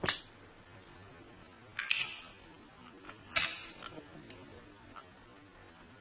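Zippo lighter's metal lid clicking open and snapping shut as it is flipped and spun in the hand. There are three sharp clacks, one at the start, one about two seconds in and one about three and a half seconds in, followed by a few lighter ticks.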